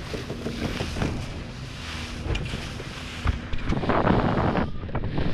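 Motorboat running fast over choppy water: steady wind buffeting the microphone over the low rumble of the run, with the hull knocking on the waves and a louder rush of spray about four seconds in.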